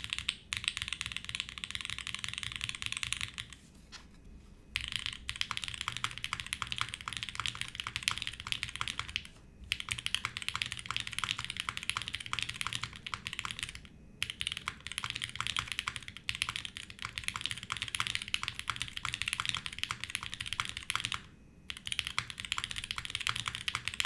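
Fast, continuous typing on a Navi60 60% mechanical keyboard with Tangerine linear switches in an O-ring-mounted aluminum plate and GMK keycaps, broken by a few short pauses. The keystrokes sound muted, which is put down to the switches being a little over-lubed.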